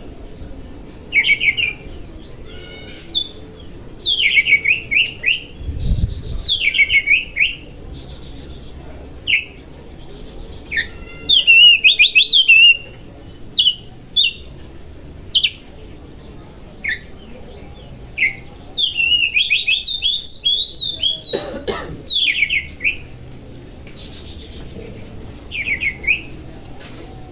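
Oriental magpie-robin (kacer) singing: short, loud phrases of sweeping whistled and chattering notes, repeated in bursts every second or two. There is a low thump about six seconds in.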